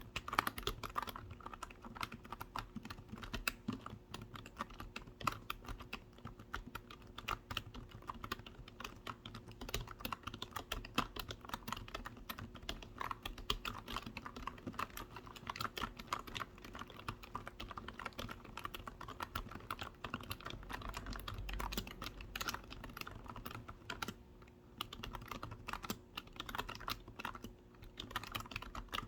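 Fast, continuous typing on a computer keyboard: a dense run of key clicks, with a couple of brief pauses near the end.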